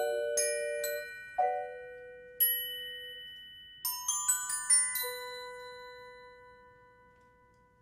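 Mallet percussion ensemble of marimbas and vibraphone playing the closing notes of a piece: a few separate struck notes, a quick run of high, bell-like notes about four seconds in, then a final chord about five seconds in that rings on and slowly fades away.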